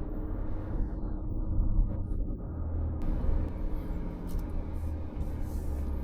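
Steady low engine and drivetrain rumble inside the cabin of a 4x4 crawling along an off-road course. A hiss joins about halfway through.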